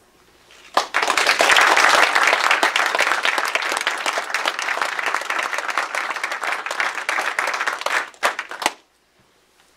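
Small audience applauding, starting about a second in and trailing off into a few last separate claps near the end.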